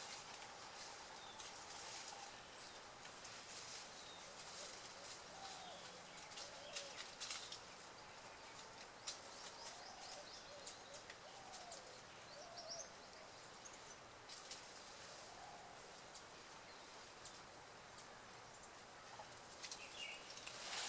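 Quiet forest ambience with faint, short bird calls scattered through it and soft, scattered ticks and small splashes from rhesus macaques drinking at a shallow pool.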